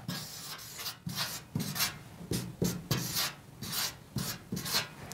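Felt-tip marker writing on a paper flipchart: a run of short, scratchy rubbing strokes as letters and numbers are drawn.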